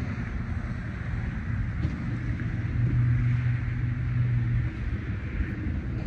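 Wind rumbling on the microphone, with a steady low engine hum for about three seconds in the middle.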